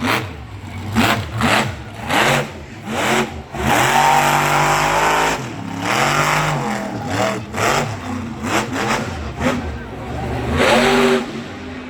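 Monster truck engine revving in repeated short bursts, with one longer rev about four seconds in.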